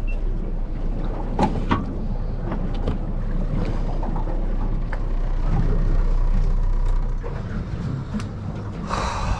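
Steady low rumble on a boat at sea, with a few sharp knocks and clicks from a heavy spinning rod and reel being handled as a jig is dropped. The deepest part of the rumble stops about seven seconds in.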